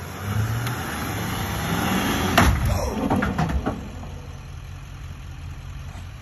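Vehicle engine running, louder in the middle, with a sharp knock about two and a half seconds in and a few smaller knocks after it.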